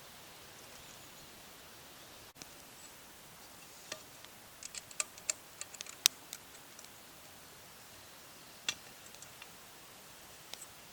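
Small wood fire crackling in a Forfar stove: sharp pops and ticks over a faint hiss, bunched a few seconds in, with a few more later.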